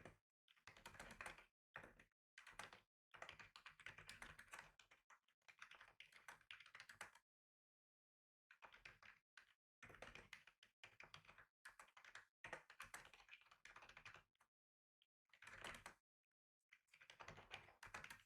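Faint typing on a computer keyboard: runs of rapid keystrokes broken by short gaps, with a longer pause of about a second and a half near the middle.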